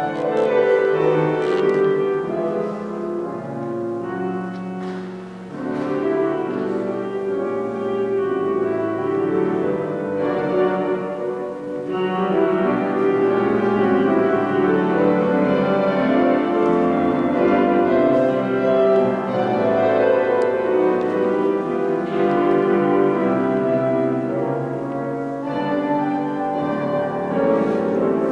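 Classical keyboard music with slow, held chords that change every second or so.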